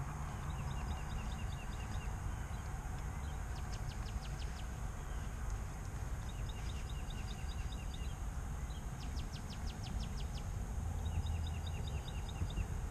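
Birds chirping outdoors in short runs of quick, high notes every few seconds, over a steady low rumble of outdoor background noise.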